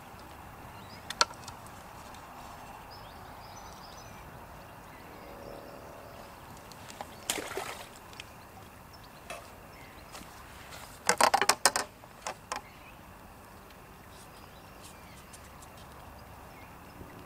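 Handling noises from pole-fishing tackle as a small fish is landed and unhooked: a short clatter about seven seconds in, then a quick run of sharp clicks and knocks about eleven seconds in. Steady outdoor background hiss lies under them.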